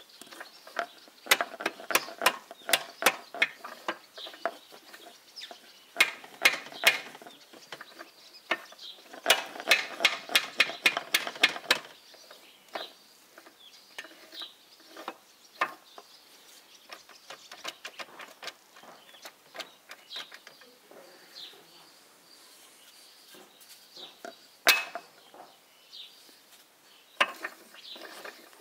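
Sharp metallic taps of a hammer on a steel drift, driving the shift-fork shaft into a U-445 tractor's gearbox housing. The blows come in clusters, the fastest run of about five or six a second coming about ten seconds in, then scattered single taps and one louder strike near the end.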